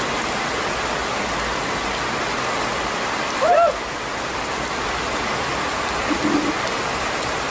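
Steady rain falling on pond water, an even hiss. A short rising-and-falling call cuts in about three and a half seconds in.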